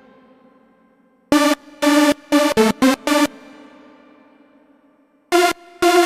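Background electronic music: groups of about five short, punchy synth chord stabs, with a fading tail and about two seconds of near pause between groups.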